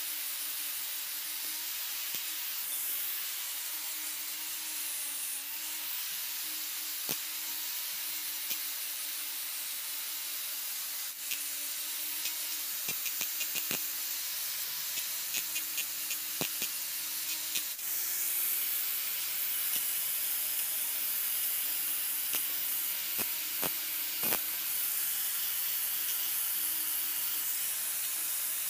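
Steady rubbing hiss of hand sanding, with a run of quick small clicks and taps around the middle.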